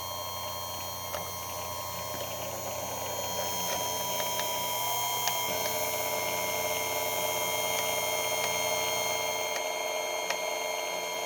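Chicago Electric electric chainsaw sharpener running steadily, its grinding wheel working on the saw chain. The grinding noise swells about four to five seconds in, with a few light clicks.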